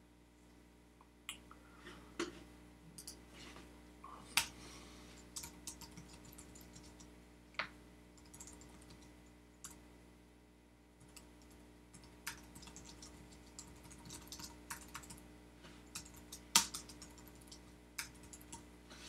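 Typing on a computer keyboard: irregular runs of key clicks starting about a second in, with a few sharper, louder keystrokes. A faint steady hum sits underneath.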